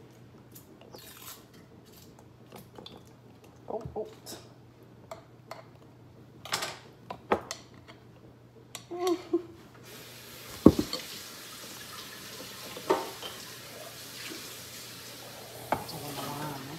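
Glass bowl, glass mason jar and plastic canning funnel clinking and knocking as crushed strawberry jam is poured into the jar, with scattered light clicks and one sharper knock about ten seconds in.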